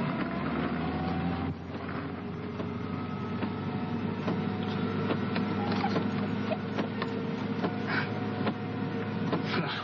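A car engine running steadily, with a constant hum and scattered light clicks and ticks over it.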